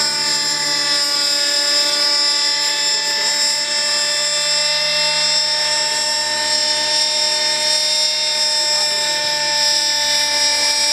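Robbe Moskito Sport radio-controlled helicopter's Novarossi 50H 8.4 cc two-stroke glow engine running at steady, high revs, a high-pitched buzz that holds one pitch throughout.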